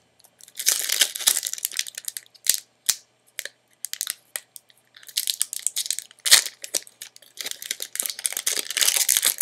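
Foil wrapper of a Magic: The Gathering booster pack crinkling and tearing as it is pulled open by hand, in stop-start bursts with a few sharp cracks.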